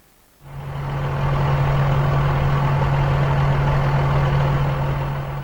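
Bulldozer's diesel engine running steadily with a constant low hum, starting about half a second in and fading out near the end.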